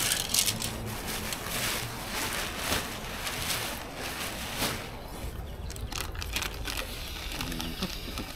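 A loaded bicycle ridden over rough ground, its bags and gear rattling and clicking over a low rumble.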